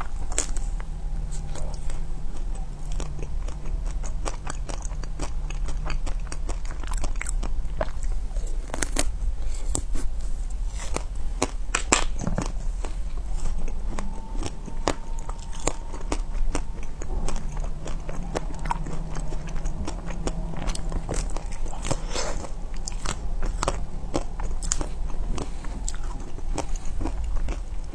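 Close-miked biting and chewing of frozen ice cream bars: the hard coating and crunchy bits crack and crunch in many sharp bites, with softer chewing between them.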